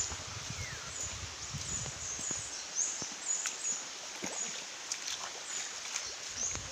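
Footsteps on a wet, rocky trail beside a small stream running over rocks, with scattered clicks of steps and high bird chirps. Low bumping rumble from the handheld recording during the first couple of seconds.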